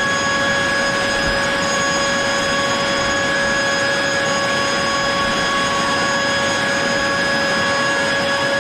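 Mac Allister MBV2800 2800 W corded electric blower vac running steadily, blowing air out of its nozzle: a constant high whine over loud rushing air.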